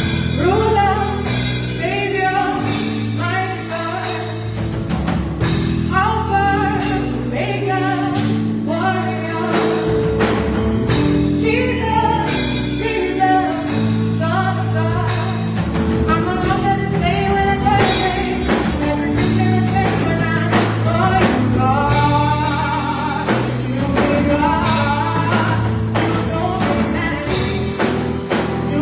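Gospel music with singing over a band with drums and sustained keyboard or bass chords.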